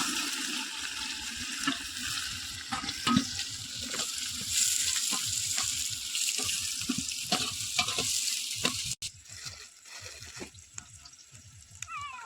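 Masala curry sizzling as it fries in a pan, with repeated scrapes of a spatula stirring it. The sizzle cuts off suddenly about nine seconds in, leaving quieter stirring scrapes.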